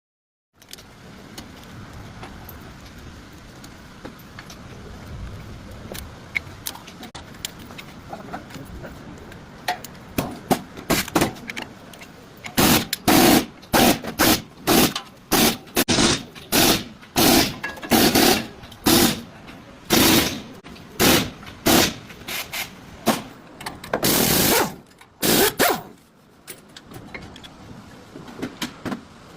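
Worn brake pads and rotor grinding metal on metal as the car brakes: a steady rolling noise gives way to a harsh scraping grind that pulses about one and a half times a second for some fifteen seconds, then stops. This is the sign of pads worn down so far that they are scoring the rotor.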